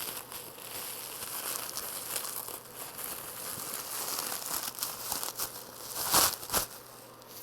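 Packaging crinkling and rustling as an item is worked out of its wrapping by hand, with two louder crackles about six seconds in.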